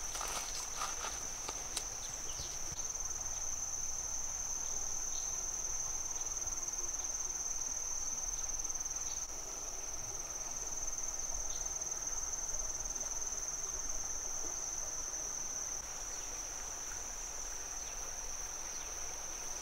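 A chorus of insects giving off one steady, high-pitched drone, over faint outdoor background hiss.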